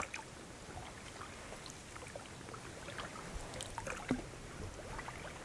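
Inflatable rowing boat moving slowly on calm water: faint trickling, dripping and small splashes from the oars, with scattered light ticks and a slightly louder knock about four seconds in.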